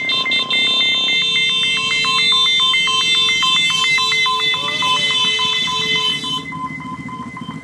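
Electronic two-tone siren switching sharply between a high and a low tone a few times a second, over the sound of trail motorcycle engines.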